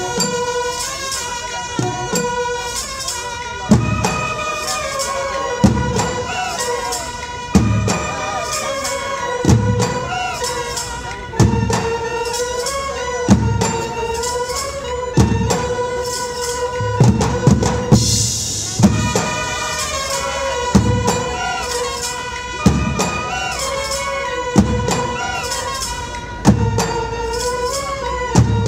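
Brass band playing a Marathi tune: brass instruments carry a held, swelling melody over a heavy drum stroke about every two seconds, with jingling percussion. A bright crash-like swell stands out about eighteen seconds in.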